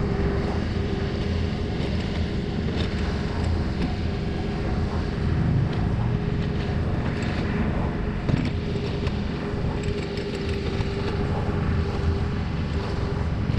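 Takeuchi mini excavator's diesel engine running steadily as it digs and swings, with a steady whine over it and a single knock a little past the middle.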